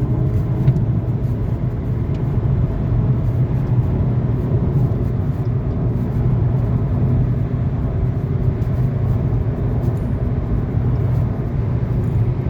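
Volkswagen Scirocco being driven: a steady, loud, low rumble of engine and road noise that holds at an even speed.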